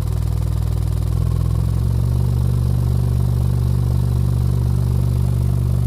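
A 15-inch NVX VCW dual 2-ohm subwoofer playing a loud low test tone that steps up in pitch over the first two seconds and then holds steady, with a rapid buzzing click riding on it. It sounds like something vibrating; the owner finds no broken joints or torn basket and doesn't take it for a burnt voice coil.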